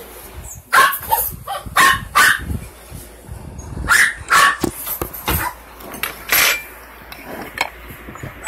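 A dog barking repeatedly: about a dozen short, sharp barks in irregular bursts, with a short lull about three seconds in.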